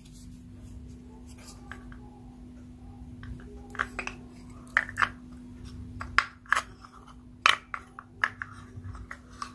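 Crisp bites and crunching chews of raw food close to the microphone: a string of sharp crunches starting about four seconds in, over a steady low hum.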